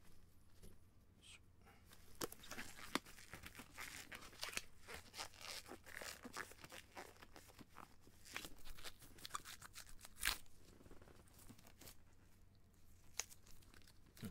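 Faint crackling and rustling of thin disposable nitrile gloves being handled and pulled on, with scattered small clicks; the loudest click comes about ten seconds in.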